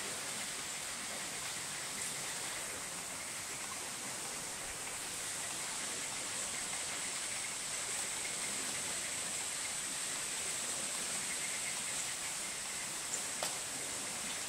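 Steady rushing outdoor noise with a high hiss, like running water, and two light clicks about thirteen seconds in.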